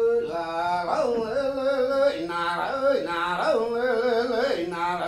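A man singing a Sami joik solo: one short melodic phrase of about a second, repeated over and over, its pitch sliding down and up.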